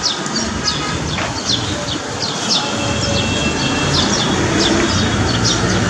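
Small birds chirping over steady street noise: short, high, falling chirps, a few each second. A car engine grows louder near the end.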